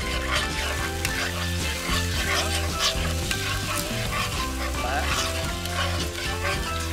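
A metal spoon stirring sausage pieces in a simmering tomato-and-chilli sauce in a frying pan, clinking and scraping against the pan, with a light sizzle from the sauce.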